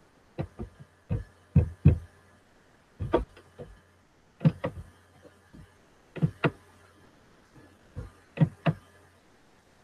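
Short clicks and knocks close to the microphone, mostly in pairs about a quarter-second apart and coming every second or two, over a faint low hum.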